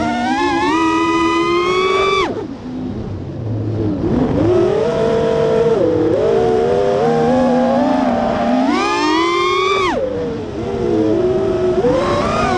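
Brushless motors of an FPV racing quadcopter whining in flight. The pitch climbs with each throttle punch and falls sharply when the throttle is cut, about two seconds in and again about ten seconds in.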